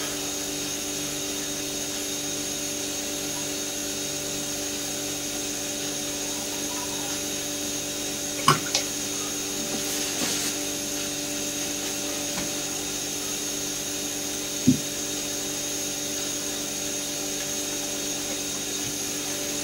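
A steady machine hum with a faint high whine over it. Two sharp knocks come through it, one a little before halfway and one about three quarters through.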